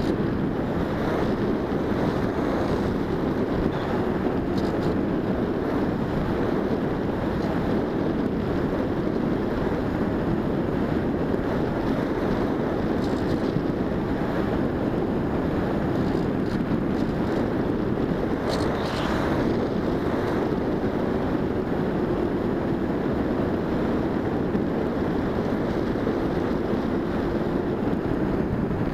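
Steady wind rush over the onboard camera's microphone as a Bixler 1.1 RC plane flies, with a faint wavering hum underneath from its electric pusher motor and propeller.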